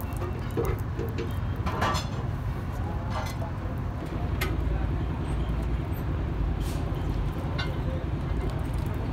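Steady low rumble of background vehicle noise, with a few light clicks and brief snatches of voices.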